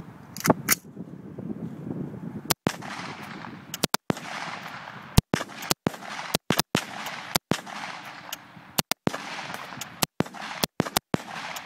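Two AR-15 rifles with muzzle compensators firing semi-automatic shots side by side, about twenty in all at uneven spacing, often two or three in quick succession as the rifles overlap. Each shot has an echoing tail. The recording drops out briefly after several of the loudest shots.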